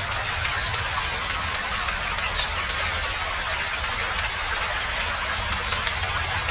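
Nature ambience: a steady rushing hiss over a low rumble, with a few short, high bird chirps about a second into it.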